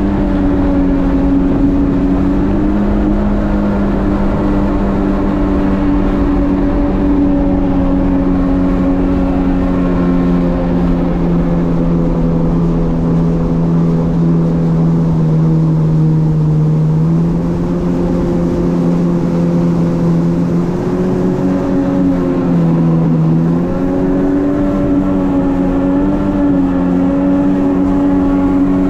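Jet ski engine running steadily under way, a droning note over a constant rushing noise. The pitch sags slowly through the middle, steps back up, then dips briefly once more before recovering.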